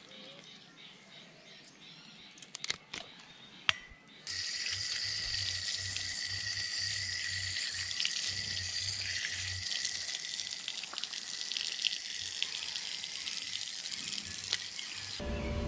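Outdoor garden tap running, water pouring steadily over a fish held under it by hand and splashing onto concrete. The water starts suddenly about four seconds in, after a few sharp clicks, and stops abruptly near the end.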